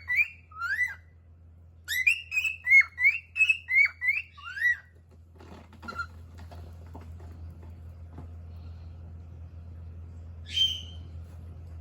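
Cockatiel singing: two quick runs of rising whistled notes, then a stop about five seconds in, followed by faint scratchy clicking and one short call near the end, over a steady low hum.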